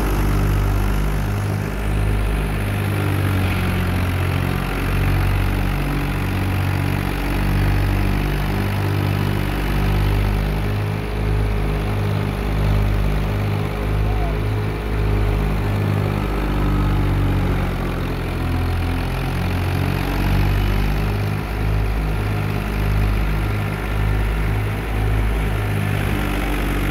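Tractor-powered wheat thresher running steadily: the tractor's diesel engine drives the threshing drum and blower, making a continuous loud, low machine drone that swells and dips slightly as straw is fed in.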